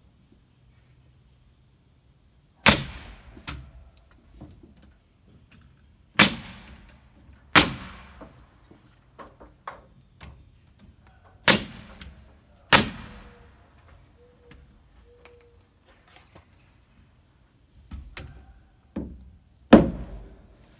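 Pneumatic nail gun driving nails to fasten wooden roof rafters to the wall top plate: six sharp shots a few seconds apart, spread unevenly, with a few lighter knocks between.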